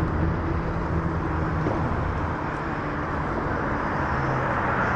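Steady rumble of road traffic on a steel bridge, with a low engine hum.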